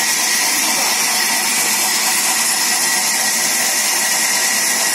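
Sawmill band saw running steadily: a constant high-pitched hiss with a thin, even whine that does not change.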